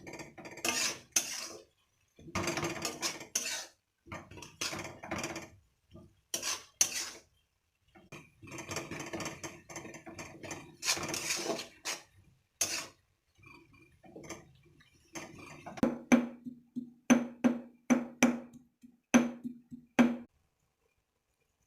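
Metal spatula scraping and clinking against a metal pan while stir-frying, in short separate bursts. Near the end comes a quicker run of sharp clinks, each with a short ringing tone.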